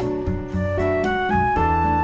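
Instrumental background music with a melody moving in short notes over a steady bass line.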